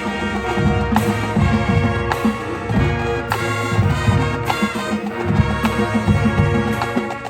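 High school marching band playing: a full brass section holding loud chords over percussion hits.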